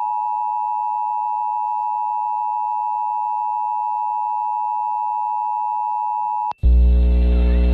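Emergency Alert System attention signal: the steady two-tone 853/960 Hz alert tone of a required monthly test, cutting off about six and a half seconds in. A louder mains hum with a buzzy stack of overtones then comes in on the broadcast audio, ahead of the spoken test message.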